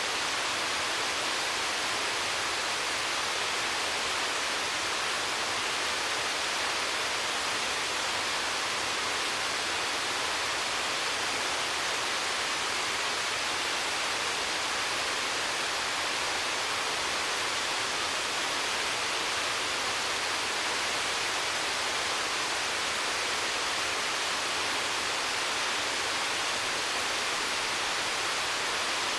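Waterfall pouring steadily, an even rushing hiss that stays the same throughout, with little low rumble.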